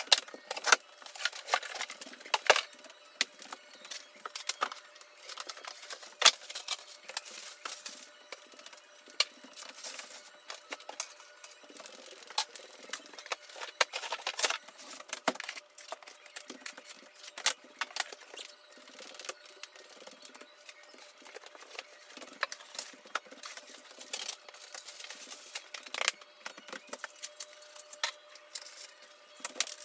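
Couch packaging being handled and torn open: irregular crackling and rustling with many sharp clicks and light knocks.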